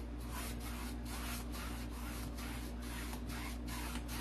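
A 1-inch paintbrush scrubbing white acrylic paint onto a canvas in quick back-and-forth strokes, about three a second, each a short bristly swish. A steady low hum runs underneath.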